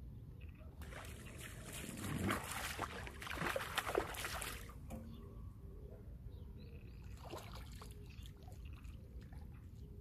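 A hooked freshwater fish splashing at the water's surface as it is played on a pole line. A loud stretch of splashing starts about a second in and lasts about four seconds, and a shorter burst follows near the three-quarter mark.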